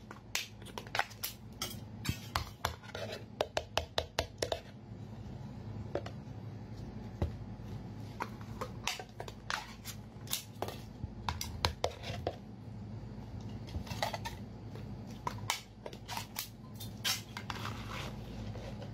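Thin plastic food containers being handled, a lid pulled off, with irregular sharp crackles and clicks of the plastic. Near the end, food is tipped out of a container onto a platter.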